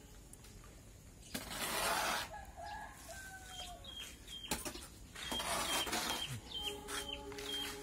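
A hoe scraping and dragging through a heap of sand and cement while mortar is mixed by hand, in two longer strokes with a few knocks of the blade. Birds call throughout: a run of short high chirps in the second half and lower calls near the end.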